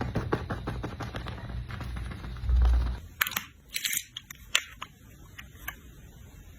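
Close-up makeup application sounds: quick repeated tapping and rubbing for about three seconds, then a few separate sharp clicks.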